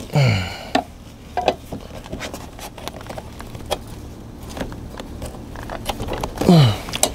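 Scattered clicks and knocks of hydraulic quick-connect fittings being handled and pushed together as the loader hoses are coupled to the tractor. A short falling grunt of effort comes right at the start and again near the end.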